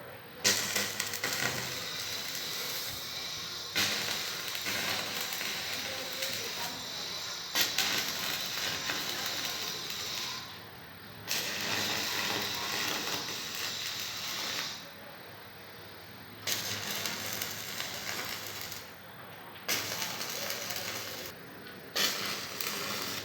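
Electric arc welding: a crackling hiss in about seven runs of two to four seconds each, every run striking up sharply and stopping, with short breaks between them.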